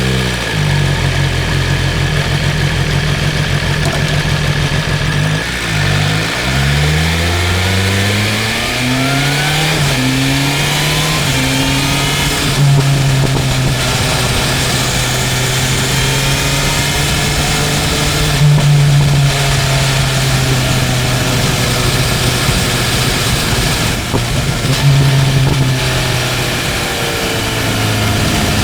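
BMW M1000R's inline-four engine pulling away and accelerating through several gears, its pitch climbing in steps and dropping at each shift. It then settles into a steady cruise with small changes in throttle.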